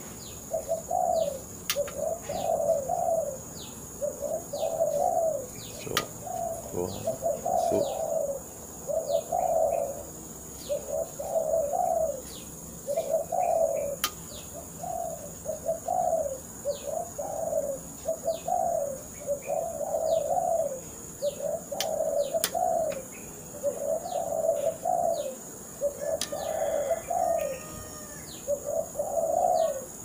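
A dove cooing over and over: a short rolling coo repeated about every second and a half.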